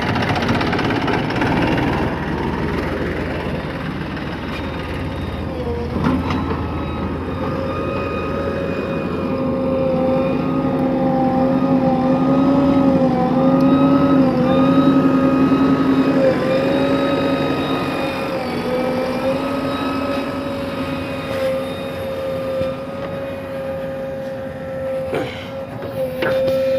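Diesel engine of a JCB backhoe loader running steadily while it works, its pitch wavering up and down. A single knock about six seconds in and a few clicks near the end.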